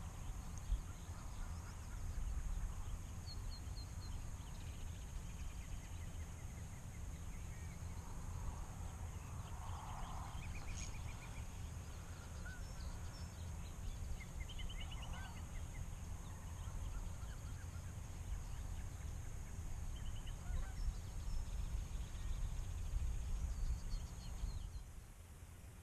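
Birds calling outdoors: a few honk-like calls and several short, rapid chirping trills over a steady low rumble.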